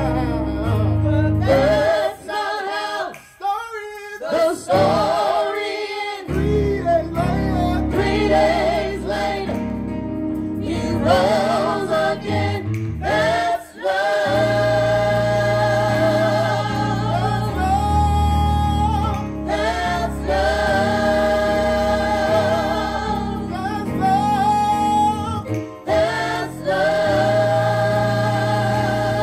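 Gospel singing with instrumental accompaniment, voices holding long notes with vibrato over a sustained low accompaniment.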